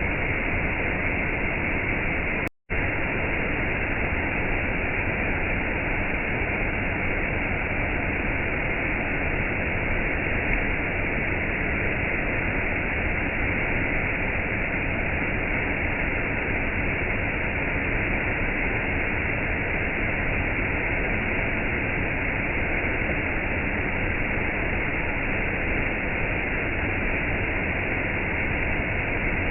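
Steady rushing water noise of gentle rain and a waterfall, even throughout, with a split-second dropout to silence about two and a half seconds in.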